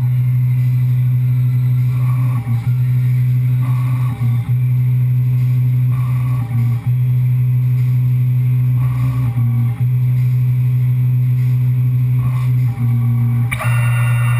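Tormach 1100M CNC milling machine cutting under flood coolant: a steady low machine hum, with a short change in the sound about every two seconds as the cutter works through its passes. Near the end comes a brief shrill, ringing burst.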